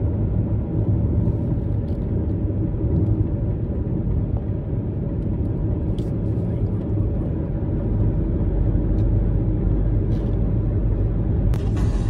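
Steady low rumble of road and engine noise inside a moving car's cabin at cruising speed.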